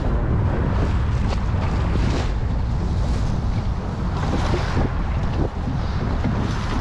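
Steady wind buffeting the microphone, with choppy water lapping against the hull of a small open boat.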